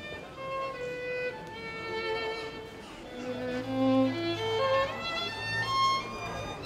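Violin bowed, playing a melody of held notes, with a quick rising run of notes about three and a half seconds in.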